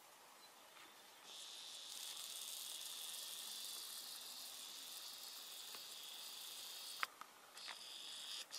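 A camcorder's zoom motor whirring faintly and steadily as the lens zooms in. It stops with a click near the end, then runs again briefly.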